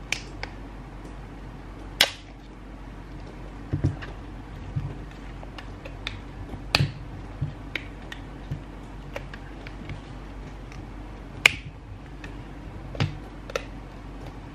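Fingers picking and peeling at the plastic-coated wrapping of an L.O.L. Surprise! Confetti Pop ball: irregular sharp clicks and crinkles, the loudest about two seconds in and again about eleven seconds in, with a few soft bumps as the ball is handled.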